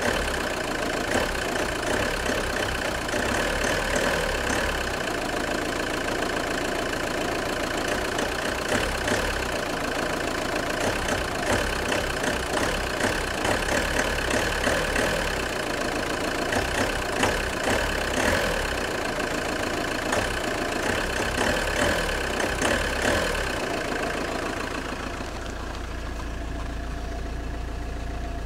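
Fiat 1.9 JTD 105 common-rail diesel engine idling cold, with an irregular creaking over the steady idle. Near the end the creaking fades out and the engine sound drops a little.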